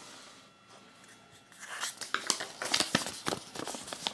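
Paper leaflet from a Kinder Surprise egg rustling and crinkling as it is handled. A quick, irregular run of sharp crackles starts about a second and a half in.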